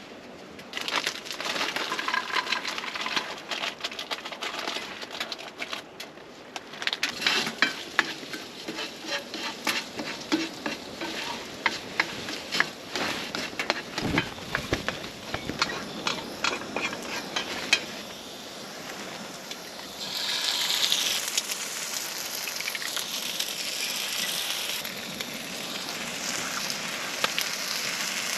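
Food frying in a pan while a utensil stirs and scrapes it, with many small clicks and scrapes. About two-thirds of the way through, a steadier sizzle takes over.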